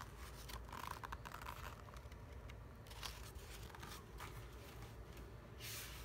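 Pages of a picture book being handled and turned: soft paper rustles and flicks, with a denser rustle near the end.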